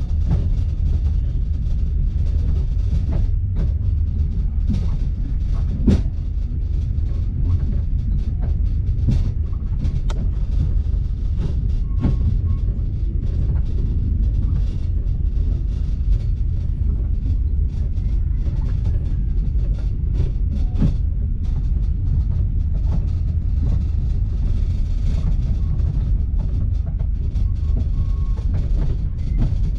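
Passenger train running along the track, heard from inside the carriage: a steady low rumble of wheels on rails, with occasional sharp knocks, the loudest about six seconds in.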